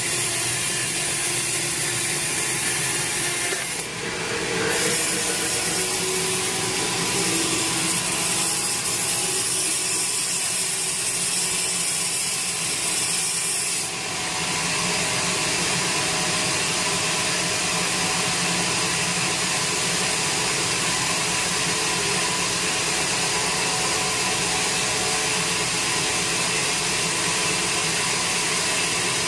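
Band sawmill running steadily, its blade ripping lengthwise through a large teak log. The sound dips briefly about four seconds in and again about halfway through.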